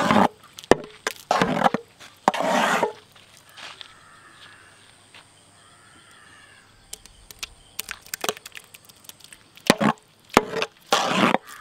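A long metal ladle scraping and knocking against a large cooking pot as thick apple jam is stirred. There are a few short scrapes in the first three seconds, then a quieter stretch, then sharp ticks and more scrapes near the end.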